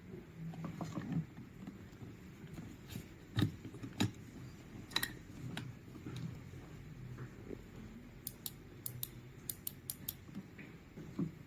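Scattered small clicks and taps of hand work on small pump parts, with a quick run of sharp clicks about eight to ten seconds in.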